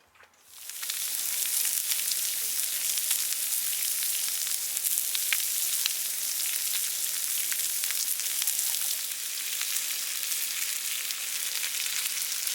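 Pork sizzling as it grills, a steady high hiss dotted with small crackles, starting suddenly about half a second in.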